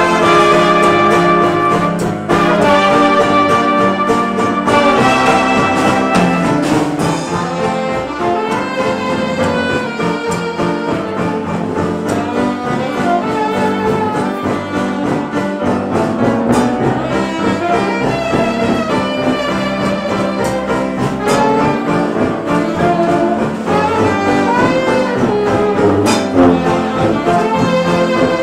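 Traditional jazz band playing, with trumpets, trombone, saxophone, sousaphone and drums together in ensemble.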